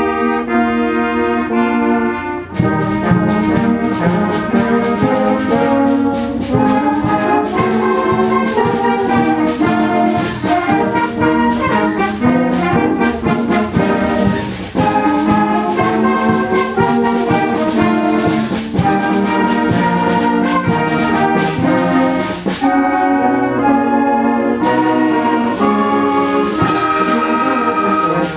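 Youth wind band playing an arrangement of American folk songs: a held brass chord, then the full band with brass, woodwinds and percussion at a lively beat.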